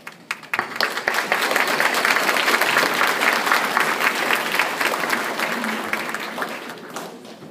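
Audience applauding, many hands clapping together. It swells within the first second or two and dies away near the end.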